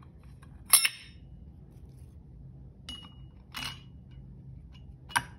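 Steel clutch plates and friction discs clinking against each other and the steel clutch basket as they are stacked into an MF50A clutch pack. There are four separate sharp clinks, the loudest about a second in with a short ring after it.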